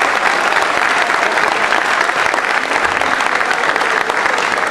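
Large crowd applauding steadily, a dense, loud clapping of many hands.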